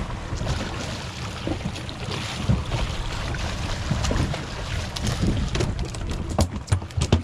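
A hooked mahi-mahi splashing at the surface beside the boat, over steady wind buffeting the microphone and water washing against the hull. Several sharp knocks come near the end as the fish is swung aboard.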